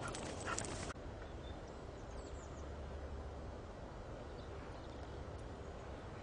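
Outdoor ambience: a steady low rumble of wind, with a few sharp taps in the first second and faint high chirps about two seconds in.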